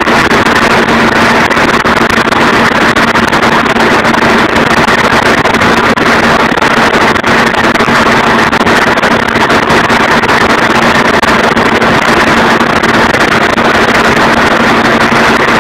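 Slurry tower mixer running steadily, stirring a slurry lagoon: a loud, unbroken mechanical drone with a constant hum through it.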